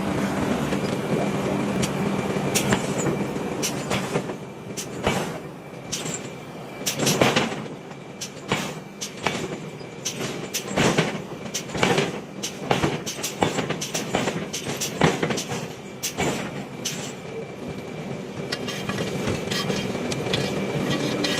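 Hammer blows on steel being forged: many sharp, irregular strikes, some in quick clusters, over a steady machinery hum.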